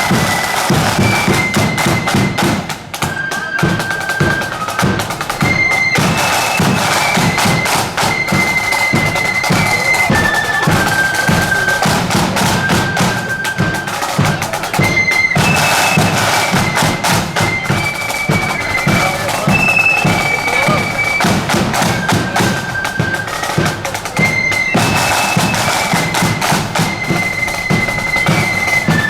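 Marching flute band playing a tune: a high melody of held notes from the flutes, over steady drumming from bass and side drums. The melody phrase repeats several times.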